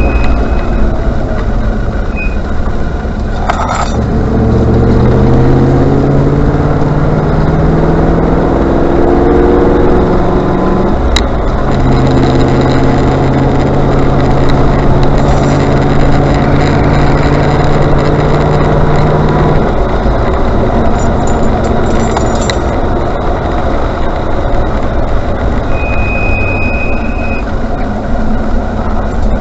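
Range Rover Classic driving, its engine and road noise loud throughout. The engine pitch climbs in steps as it accelerates, then holds steady. Near the end comes a short, high-pitched brake squeal.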